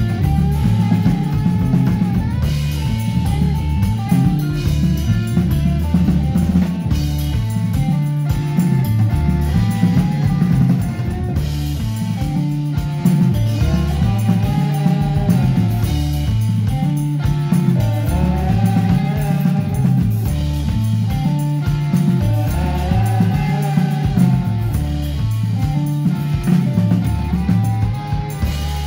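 Live psychedelic rock band playing loud: electric guitars over a driving bass line and a full drum kit.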